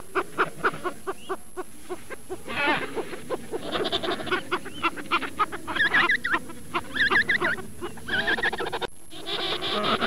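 Penguins calling in a group: a rapid run of many short, overlapping calls and squawks, with a few wavering, trilling high calls about two-thirds of the way through.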